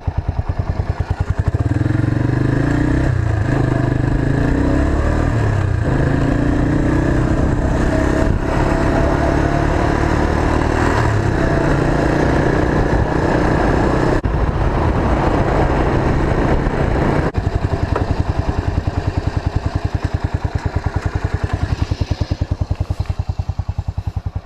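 Motor trike's engine running while riding, its note stepping up and down several times as the rider works through the gears, then settling lower and a little quieter after about seventeen seconds as it slows.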